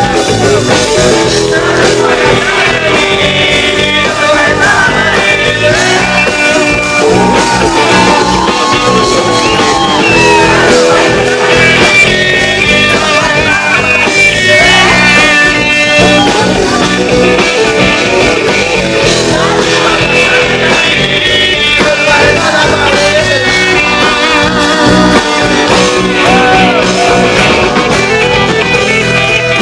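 Background music: a rock song with a singing voice over guitars.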